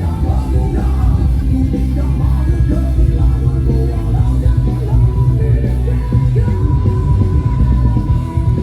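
Loud music with a heavy, steady bass and a singing voice; about halfway through, one long high note is held almost to the end.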